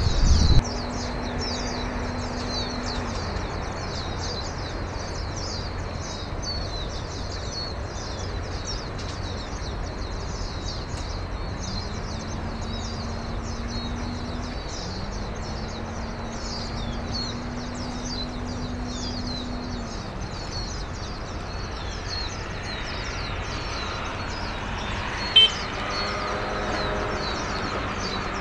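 Many small birds chirping rapidly and continuously over a low hum that comes and goes. In the last few seconds the steady drone of a ship's engine builds. A single brief sharp knock comes about 25 seconds in.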